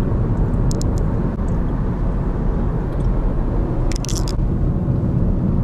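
Steady low rumble of road and engine noise inside a moving car's cabin, with a brief hiss about four seconds in.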